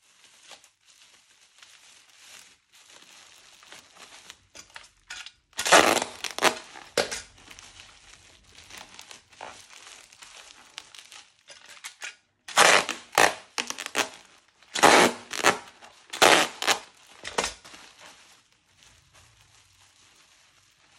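Crinkling and rustling, like wrapping being handled and torn, in irregular bursts. It is loudest in two spells, one about six seconds in and a longer one in the second half, with fainter rustling in between.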